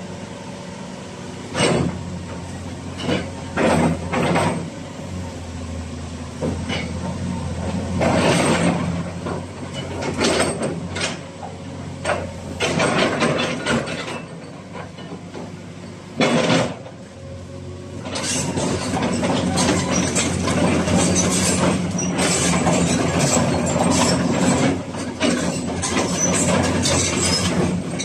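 Caterpillar 336D crawler excavator's diesel engine running steadily, with scattered short clatters. About two-thirds of the way in it gets louder, with dense continuous clattering over the engine.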